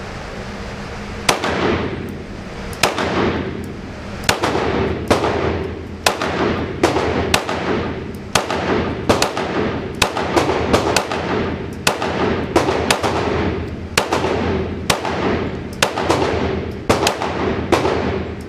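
9mm Glock 19 pistol firing a long string of shots, roughly one to two a second and quicker in places, each shot echoing off the walls of the indoor range. A steady ventilation hum runs underneath.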